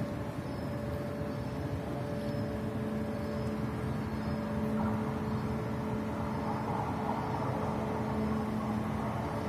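Passenger train pulling out of the station, running with a steady hum that holds several tones; it grows a little louder about five seconds in.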